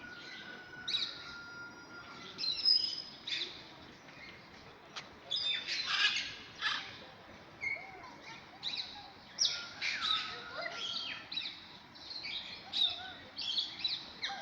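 Several birds chirping and whistling, with many short overlapping calls and a few held whistled notes.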